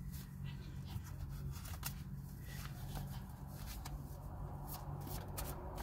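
Tarot cards being handled and shuffled: soft, scattered flicks and ticks of card stock, over a low steady hum.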